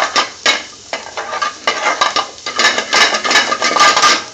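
Metal spoon stirring and scraping paneer and green chillies around a metal frying pan in quick, repeated strokes. The stirring eases for about a second early on, then picks up again and stops right at the end.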